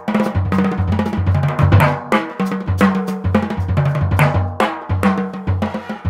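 Drum kit solo played with sticks in steady time, using only dry, short sounds: quick strokes on snare, toms and bass drum that die away fast rather than ring.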